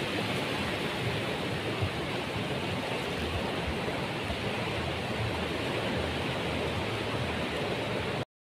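Small waves washing onto a sandy beach: a steady rush of surf that cuts off suddenly near the end.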